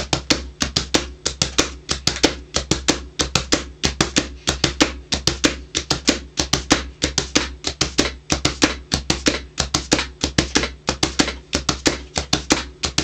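Hands drumming on a cardboard box, tapping and slapping out a steady, fast rhythmic beat of about five or six strikes a second.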